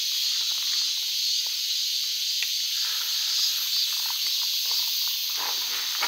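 Steady, high-pitched drone of a summer insect chorus, with faint crunching footsteps on gravel.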